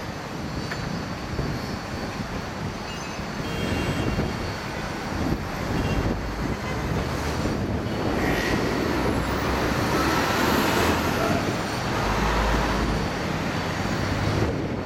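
Street traffic noise, a steady rumble of passing vehicles that grows louder partway through and swells near the end.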